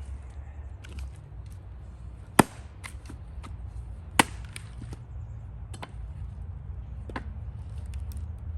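An axe splitting firewood by hand: two loud, sharp strikes into the wood a little under two seconds apart, with several lighter wooden knocks between and after.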